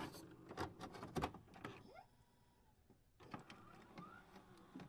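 Near silence, broken by a few faint clicks, most of them in the first second and a half, and a couple of short, faint rising chirps.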